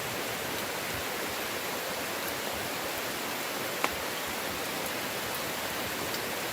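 Heavy rain falling steadily as an even hiss, with one sharp tick about four seconds in.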